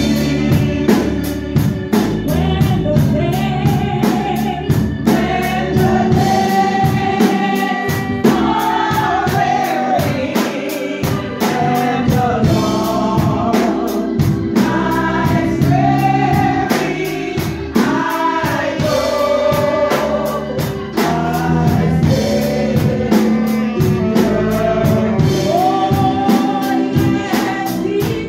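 Live gospel hymn: a woman singing lead with backing singers, accompanied by saxophone, electric bass guitar and drums keeping a steady beat.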